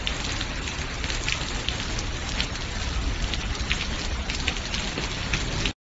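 Hailstones falling and clattering on paving and the ground: a dense steady hiss with many sharp ticks of single stones striking. It cuts off abruptly near the end.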